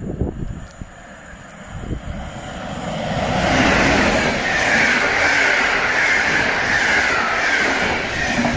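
PKP Intercity passenger train running through the station without stopping: the noise swells as the locomotive arrives about three seconds in, then holds as a loud, steady rush of wheels on rails while the coaches go by.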